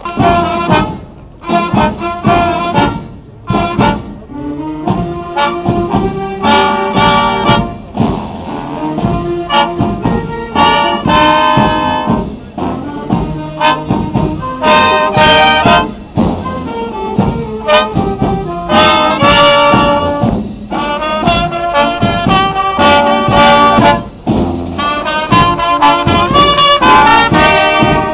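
Marching brass band playing in full: massed trumpets and trombones sounding a loud, rhythmic tune in phrases, with short breaks between them.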